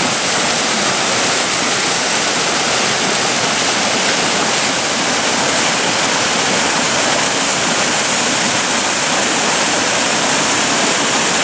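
Water spilling over a stone weir and churning white in the river below: a steady, loud rush of falling water.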